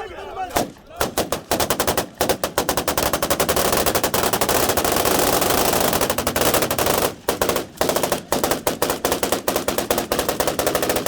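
Long, rapid bursts of celebratory automatic gunfire, many shots a second, almost unbroken apart from short pauses about seven seconds in.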